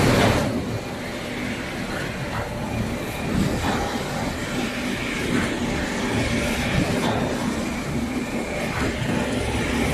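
Automatic folder gluer and stitcher for corrugated cartons running with a steady mechanical din, with a few faint knocks scattered through it.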